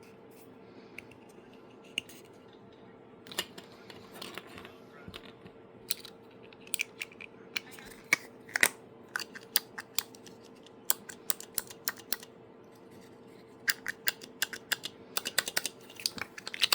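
3D-printed plastic clicker being pressed repeatedly: sharp, irregular clicks, few at first, then coming in quick runs near the end.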